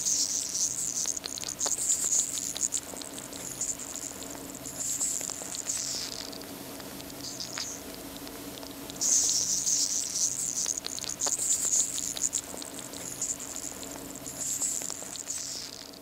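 A single manicou crab hissing, creaking and clicking: two long spells of high hissing crackle, the first over the opening six seconds and the second from about nine seconds to near the end, with scattered sharp clicks between them, over a faint steady low hum.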